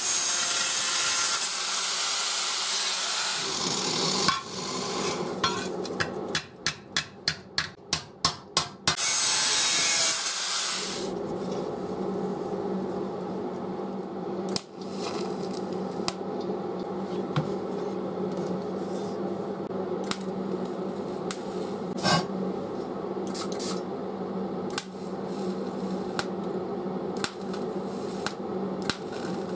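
Angle grinder cutting steel plate, followed by about three seconds of hand strokes at roughly three a second and a second short burst of grinding. From about eleven seconds in, a steady electric welding hum with occasional crackles and clicks from the arc.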